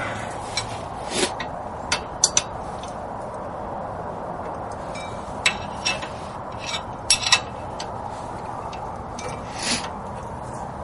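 Steel wrenches clinking and knocking against each other and against the hub bolts in about a dozen scattered sharp clicks, as the wheel hub assembly's bolts are broken loose with an 18 mm wrench levered by a second wrench.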